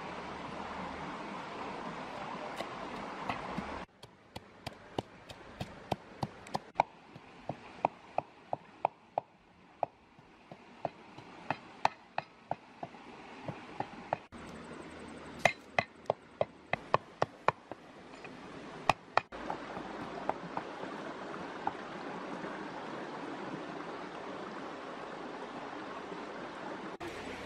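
A wooden pestle knocking in a small earthenware mortar, pounding at about two strokes a second. It starts about four seconds in and stops a few seconds before the end. The rest is a steady rushing noise.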